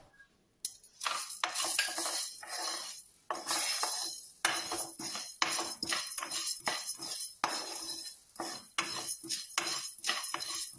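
Wooden spoon stirring dry coriander seeds being roasted in a nonstick kadai: repeated scraping, rattling strokes as the seeds are pushed across the pan, starting about half a second in.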